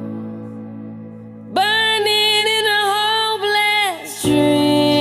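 Background pop song: a held chord, then a singer holds one long note for about two seconds before the accompaniment moves to a new chord near the end.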